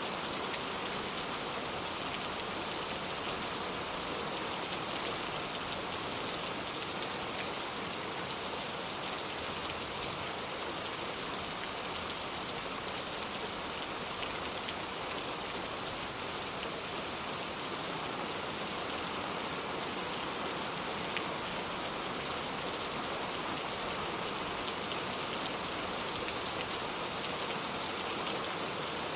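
Steady rain falling, a dense even hiss with many small drop ticks on surfaces.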